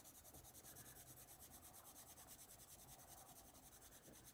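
Faint scratching of a Brutfuner oil-based coloured pencil shading a swatch on paper in quick, even back-and-forth strokes, about eight a second.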